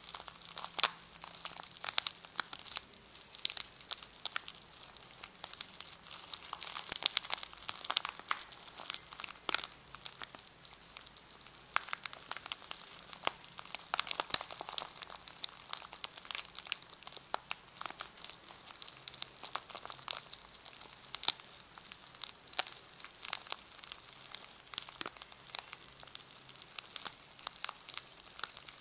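Plastic packaging around a brush crinkling as it is handled, a dense, irregular run of sharp crackles.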